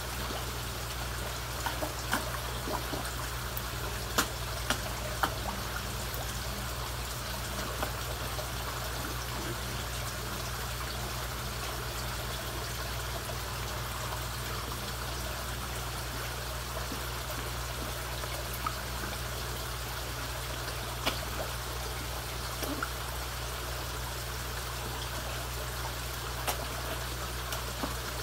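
Koi pond water trickling steadily over a low steady hum, with sharp splashes here and there as koi break the surface at the feeding hand, loudest a few seconds in.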